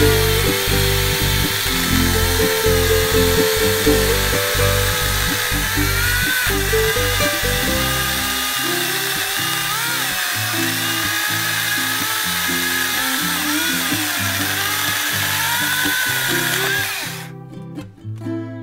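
A 6-inch cordless electric mini chainsaw cutting through a hard ash log, its motor whine wavering as the load changes, cutting off abruptly near the end as the cut finishes. Background music plays underneath.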